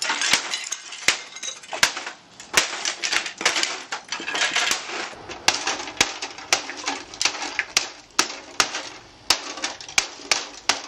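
Wooden baseball bat repeatedly smashing a plastic desktop printer: a long run of sharp cracks, about two blows a second, with breaking plastic clattering between them.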